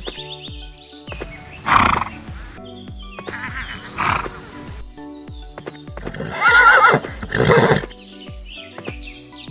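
Horse neighs and whinnies laid over light background music: short bursts about two and four seconds in, then a longer, louder whinny with a wavering pitch about six to eight seconds in.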